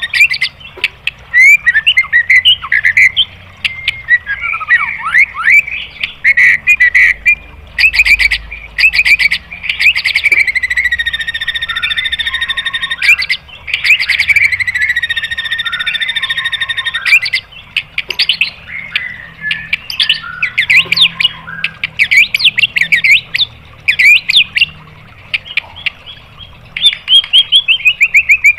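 White-rumped shama (murai batu) singing a loud, varied song of quick trills and gliding whistles, broken by long buzzy rattles several seconds each, with a fast run of repeated notes near the end.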